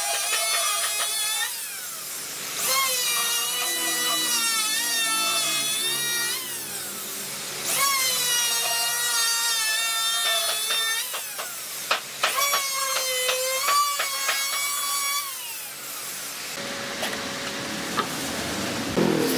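A high-speed electric power tool cutting wood: its motor whines in three runs of a few seconds each, the pitch dipping and wavering as the tool bites. Near the end a rougher, steadier rubbing sound takes over.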